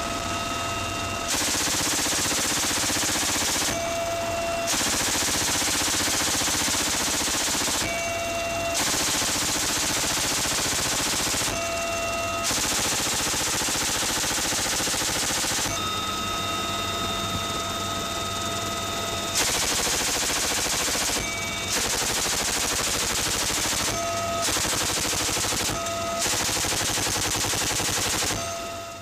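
Door-mounted M2 .50-calibre heavy machine gun on a UH-1Y helicopter firing about eight long bursts of a few seconds each. Between the bursts, the helicopter's steady turbine and transmission whine is heard.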